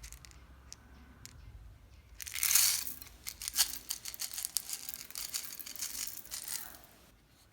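Slime being squeezed and stretched by hand, crackling with many sharp popping clicks that start about two seconds in, last about five seconds, then die away.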